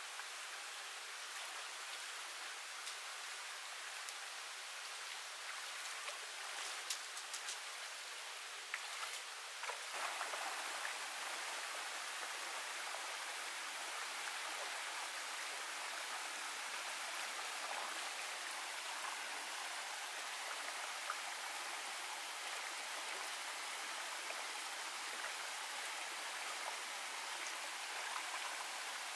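Shallow rocky stream running steadily, with a few small splashes and clicks of hands working in the water a few seconds in. About ten seconds in the water becomes louder and fuller as a small cascade dominates.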